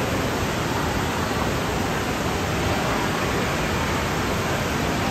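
Steady rushing noise of running water echoing through an indoor water-park hall, with no distinct splashes standing out.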